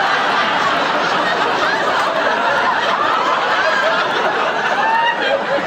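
Studio audience laughing, many people at once, loud and sustained.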